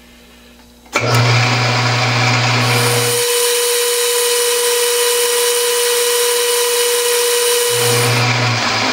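Metalworking lathe starting up about a second in and running steadily while a twist drill in the tailstock bores into a very hard steel hex bar. A steady whine sits over the machine noise from about three seconds in until near the end.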